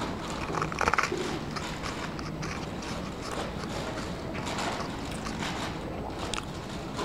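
Paper muffin liner crinkling and rustling as fingers pick at it, over steady room noise; the loudest crinkle comes about a second in.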